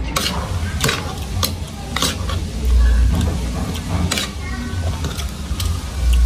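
Metal spoon and fork clinking and scraping against a ceramic plate as rice is mixed and scooped, in a string of sharp clicks. A few low thuds come in between, the loudest around the middle and near the end.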